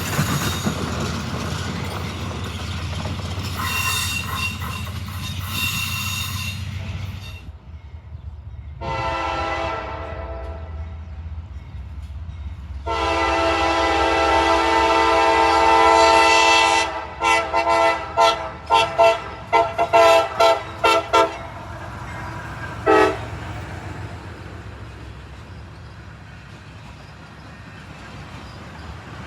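Locomotive air horn sounded as a horn show: a short blast, a long blast of about four seconds, then a quick run of about eight short toots and one more toot. Under it a train rumbles by, loudest at the start.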